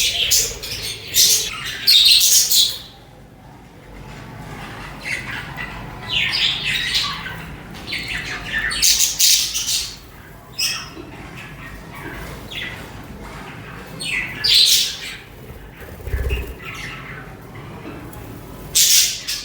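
Budgerigars chirping and chattering in bursts of short, high squawks and warbles, loudest in the first few seconds and again in several clusters later, with softer chatter in between.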